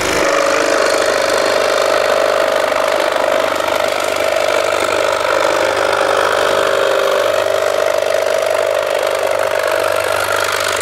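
Einhell TC-SS 405 E electric scroll saw running and cutting through a thin wood board, a steady buzz. The saw vibrates heavily because it stands on a rubber mat.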